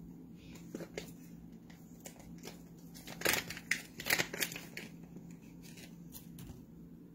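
Scissors snipping at product packaging: a few faint clicks about a second in, then a quick run of sharp snips near the middle.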